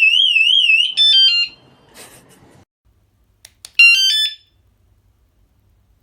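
Cruxer wireless bike alarm sounding its rapidly warbling siren, which cuts off about a second in with a quick run of stepped electronic chirps as it is silenced from its remote. Two light clicks follow, then a second short run of chirps a little after the middle.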